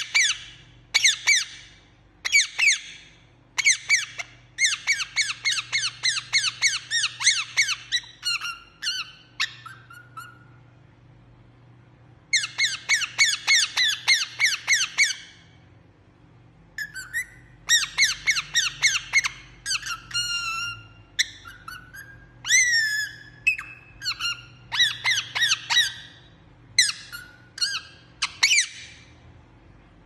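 Indian ringneck parakeet chirping: runs of rapid, high-pitched chattering notes, several a second, broken by pauses of a second or two, with a few longer downward-sliding calls about two-thirds of the way through.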